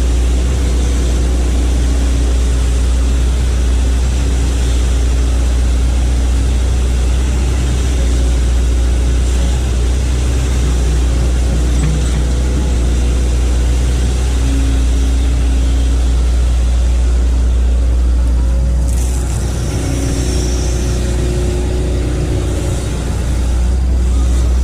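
Hitachi hydraulic excavator's diesel engine running steadily with a heavy low rumble; it eases off a little about nineteen seconds in and picks back up near the end.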